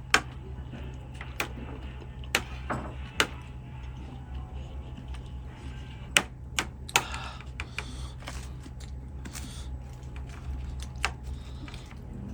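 Scattered sharp clicks and taps of eating utensils against dishware, about eight or nine at uneven intervals, over a steady low hum.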